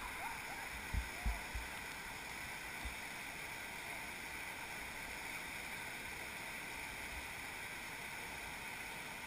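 River rapids rushing steadily over boulders. A few short low thumps come about a second in.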